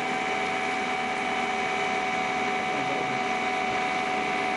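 Electric motor belt-driving an alternator-type generator, running at a steady speed with a steady whine of several tones over a mechanical hum; the pitch shifts slightly near the end.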